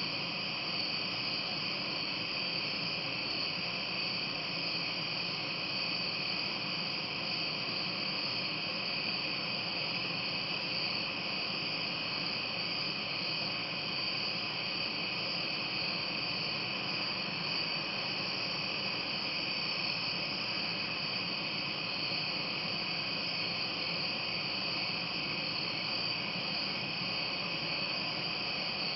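Steady, continuous chorus of night-singing insects, a shrill high-pitched trill that never breaks, with several pitches layered together.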